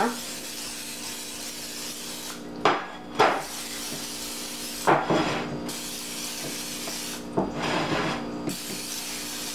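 Aerosol butter cooking spray hissing in long bursts into a ceramic soufflé dish to grease it, broken by short pauses with a few brief knocks and clinks as the dish is handled. A steady low hum runs underneath.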